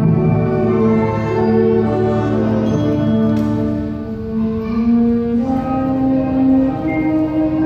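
A school concert band playing a slow passage of long, held chords with brass prominent; the harmony shifts slowly and steps up in pitch about five and a half seconds in.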